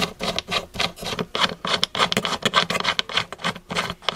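Small steel hex nut being spun by hand onto a machine screw's threads, with fingers rubbing against it: a quick, irregular run of small scratchy clicks and rubs.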